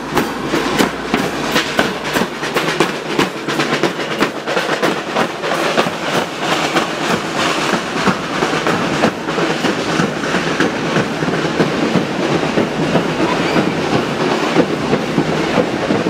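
Marching percussion band of metal-shelled snare and bass drums with hand cymbals, playing a fast, steady beat while walking. The strokes are sharp and regular in the first half and blur into a denser clatter later on.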